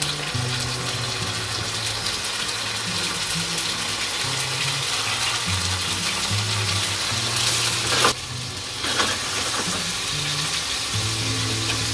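Swordfish steaks frying in hot vegetable oil in a non-stick pan, a steady sizzle. There is a brief louder burst about eight seconds in, as a second steak goes in.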